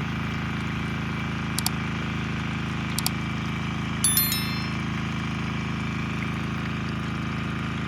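An engine running steadily at constant speed. Two sharp clicks and then a single metallic clang that rings briefly, about four seconds in.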